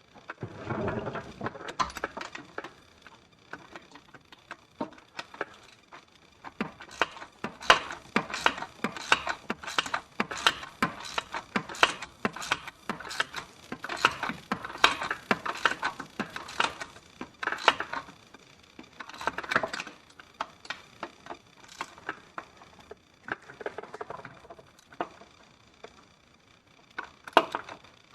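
Irregular metal clicks and clinks of hand tools and linkage parts as the repaired transfer case shifting arm is worked back into place, busiest through the middle with short pauses.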